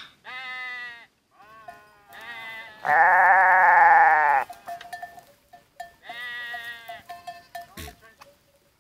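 Goats bleating: about five wavering calls in a row, the loudest and longest lasting about a second and a half, about three seconds in.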